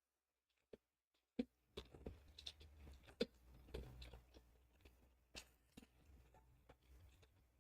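Faint chewing and crunching of food, small scattered clicks over a low hum, starting after about a second and a half of silence.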